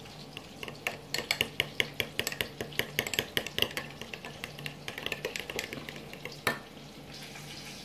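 A spoon stirring thick barbecue sauce in a small glass bowl, clinking quickly and repeatedly against the glass. It stops after a louder knock about six and a half seconds in.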